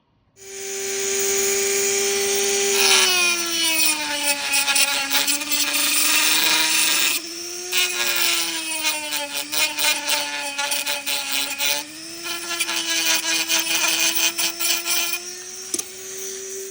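A handheld electric power tool's motor whining at high speed under a rough rasping hiss, its pitch sagging and recovering several times as it is worked. It starts about half a second in and cuts off at the end.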